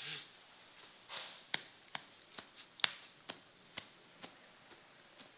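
A child's hand patting a man's back after his coughing fit: a series of light pats, about two a second, fading out near the end.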